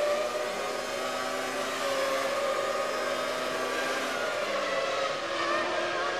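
Onboard sound of a Williams FW19 Formula One car's Renault V10 engine running at high revs, its note dipping and rising slightly through the corners. About five seconds in the sound changes as the view moves to the cars heard from trackside.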